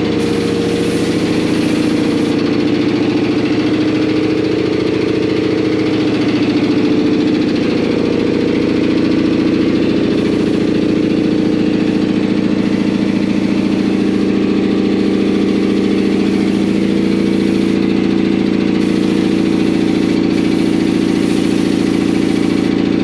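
Air compressor running steadily in the background while a paint spray gun is triggered in repeated bursts, each a high hiss of air and paint lasting one to three seconds.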